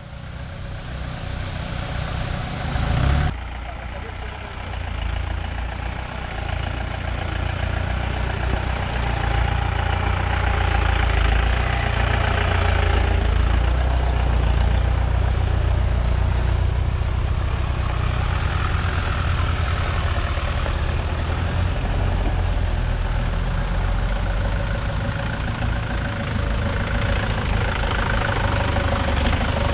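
Engines of off-road 4x4s running at low speed as they climb a dirt trail, a steady low engine sound. The sound changes abruptly about three seconds in.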